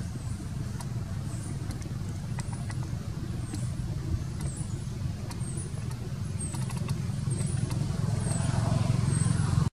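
Steady low mechanical rumble, growing louder near the end, with short faint high chirps and a few light clicks scattered through.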